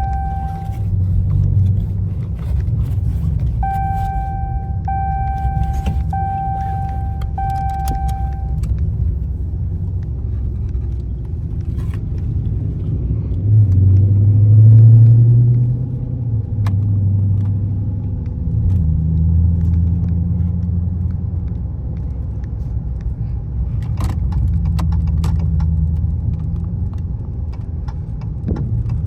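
Car engine idling with a steady low rumble, swelling louder for a couple of seconds about halfway through. Early on, the car's warning chime beeps five times, about a second apart.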